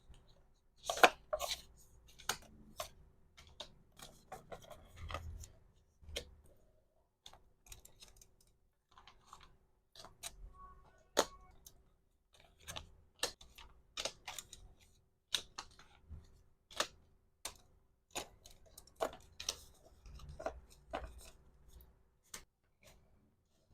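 Irregular sharp clicks, taps and crinkles of small hard plastic items and packaging being handled while packing orders, several a second at times, with quieter gaps.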